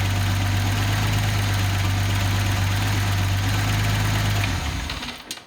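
Datsun 280ZX Turbo's L28ET straight-six on an engine test stand, idling steadily, then dying about four and a half seconds in and winding down to a stop. The engine has stalled on its own.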